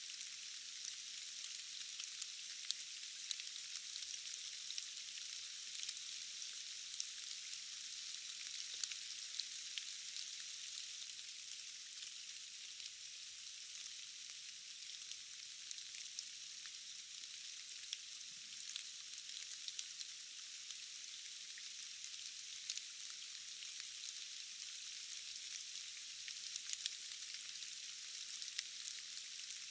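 Steady rain falling: an even, thin hiss with scattered individual drops ticking through it, and no low rumble.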